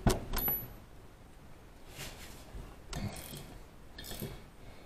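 Hand wrench working a rusted exhaust manifold stud nut loose: a sharp metallic crack as the nut breaks free, then a few faint clicks of the wrench and socket.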